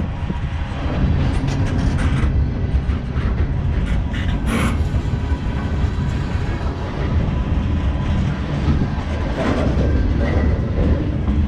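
Freight train cars rolling past close by: a steady low rumble of steel wheels on rail, with scattered sharp clicks and knocks, the loudest a little under halfway through.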